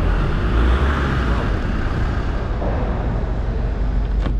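Steady low rumble of a ferry's car deck, the ship's machinery running. Near the end comes a single sharp click as a key goes into a car door lock.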